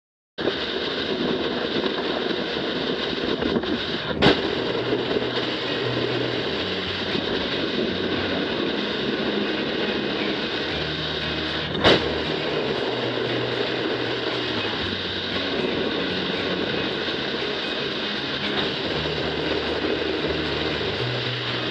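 Loud distorted rock music, a dense wall of guitar sound over a stepping bass line, starting abruptly and carrying on steadily, with two sharp crash-like hits about four and twelve seconds in.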